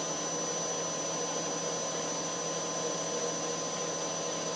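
Hoover Nextra 1400 washing machine on its spin cycle, the motor and drum running at speed with a steady whine.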